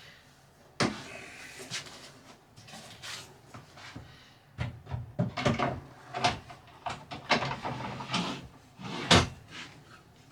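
Wooden cabinetry being handled and fitted: a series of separate knocks, clunks and rattles of cabinet doors and panels, with the loudest knock near the end.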